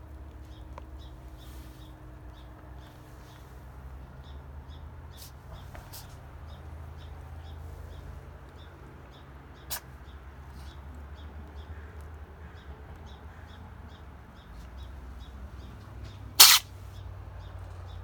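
Domestic cat sneezing: one sharp, loud sneeze about 16 seconds in, after a fainter short sneeze about halfway through.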